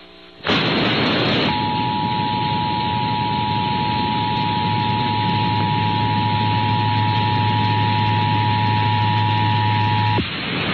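Emergency Alert System two-tone attention signal, 853 and 960 Hz sounded together, received over FM radio. The steady alert tone holds for about nine seconds over loud radio static hiss, with a low hum joining partway, and cuts off near the end, leaving the hiss.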